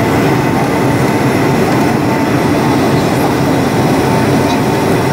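Steady cabin noise of a Boeing 757-204 in flight, heard from a seat over the wing: the even rumble of its Rolls-Royce RB211 engines and rushing air, with a faint steady whine.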